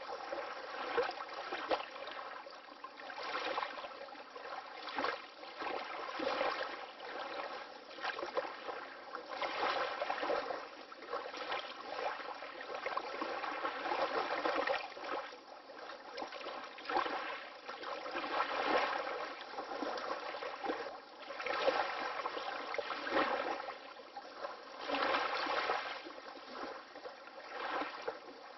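Small waves of water lapping and splashing, swelling and falling back irregularly every second or two.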